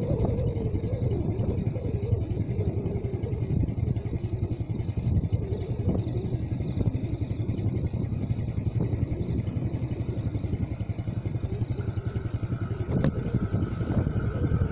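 Diesel locomotive of an approaching passenger train, its engine rumbling steadily and low. There is one sharp click about 13 seconds in.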